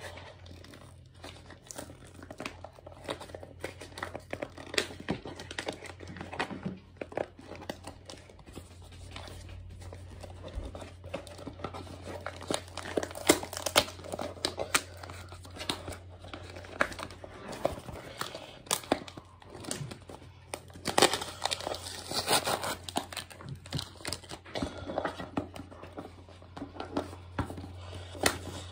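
Packaging being opened by hand: irregular crinkling, rustling and tearing with scattered clicks and knocks, over a steady low hum.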